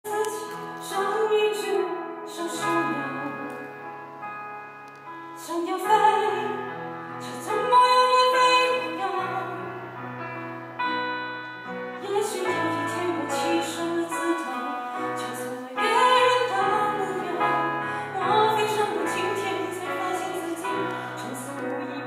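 A woman singing a song live into a microphone with a slight vibrato, accompanied by keyboard and acoustic guitar.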